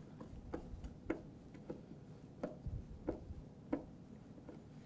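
Phillips screwdriver turning a screw into plastic, with a faint click or creak at each turn of the wrist, about six in a row roughly every half second.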